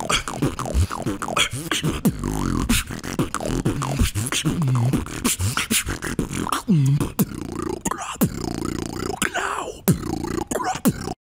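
Solo beatboxing: sharp vocal drum clicks and snare hits over a buzzing vocal bass that swoops down and back up in pitch. It cuts off suddenly near the end.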